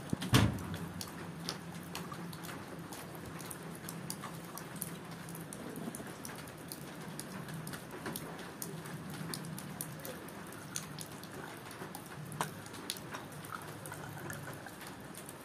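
Steady rain with scattered drips. About half a second in, a metal tray holding tea glasses is set down with a short loud clatter, and near the end tea is poured into a glass.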